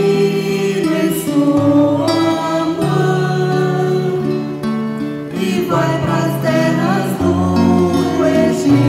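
A church choir singing a Portuguese communion hymn with guitar accompaniment, in slow held notes over a bass line that moves in steps.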